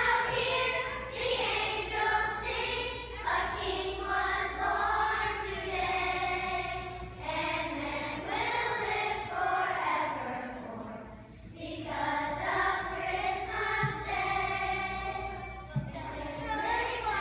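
A large children's choir singing a Christmas song in sustained phrases, with short breaks between them.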